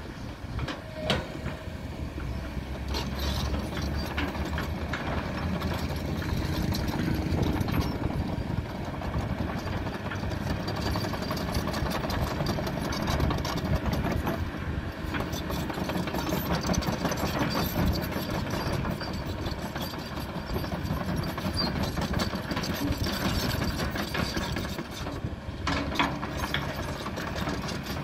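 Diesel engine of a Kobelco long-reach excavator running steadily under hydraulic work as the boom and bucket move, with a few sharp knocks.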